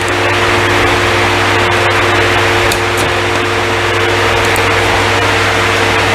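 Powered pump of a hydraulic shop press running with a steady hum and hiss, pushing on a gearbox shaft to press a gear off. It starts right at the beginning and holds an even pitch throughout.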